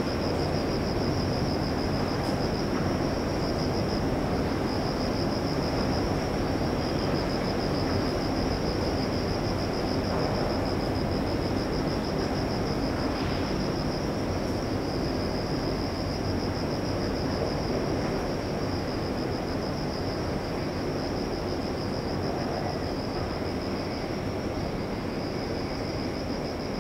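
Night ambience: insects trill continuously at a high pitch over a steady low rumble like distant traffic or machinery.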